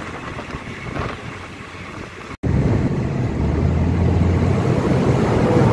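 Moving diesel passenger train heard from inside the carriage: a steady rumble of wheels and running noise. After a sudden cut about two seconds in, a louder, steady low engine drone takes over.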